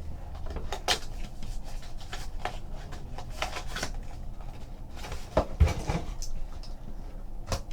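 Trading card boxes being handled and opened on a table: scattered taps, knocks and rustles of the packaging, with a louder knock about five and a half seconds in and another near the end.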